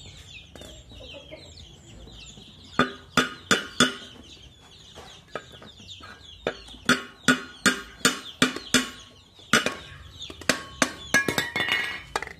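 A hollow steel racing-muffler shell being knocked to free its inner tube and end cap: a run of sharp metal strikes, each ringing briefly, coming in quick clusters from about three seconds in. Faint chirping calls sound before the knocking starts.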